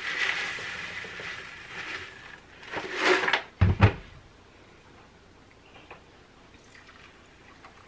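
Chicken scratch grain poured from a bucket into a mixing bowl, a steady rattling hiss for about two and a half seconds, then a louder rush of grain around three seconds in. Just afterwards comes a short low thud as the bucket is set down on the counter.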